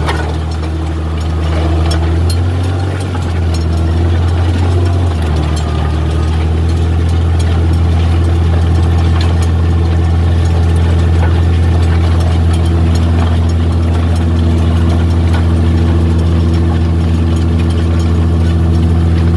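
New Holland 8870 tractor's six-cylinder diesel engine running steadily while pulling a plough. Its pitch shifts a few seconds in, then holds even.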